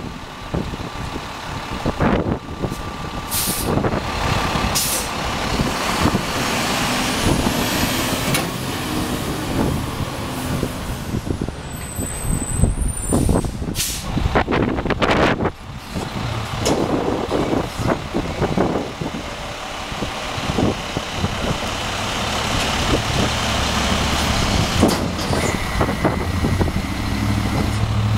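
Split-body Heil Multitask SL garbage truck working at the curb: the engine runs steadily under the packer's hydraulics, with a rising whine about seven seconds in. Several sharp bursts of air hiss and clanks come from the packer and the cart tippers.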